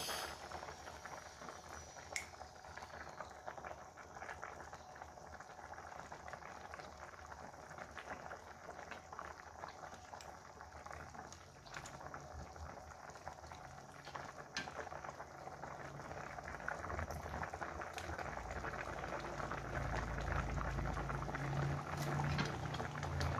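Spicy-sweet sauce with pieces of patin fish bubbling at the boil in a pan: a steady wash of small bubbles popping. There are a few sharp clicks, and a lower rumble grows louder over the last few seconds as the boil picks up.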